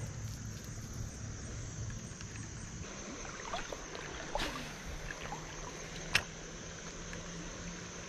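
Creek water sloshing and trickling around a wading angler's legs, over a steady high insect drone, with one sharp click about six seconds in.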